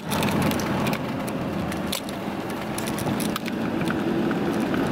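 Steady noise of a moving car heard from inside the cabin, with a few light clicks and ticks over it.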